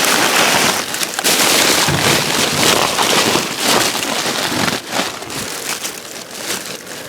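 Plastic bags and chip bags crackling and rustling as they are rummaged through, a loud, dense crackle that eases off somewhat in the second half.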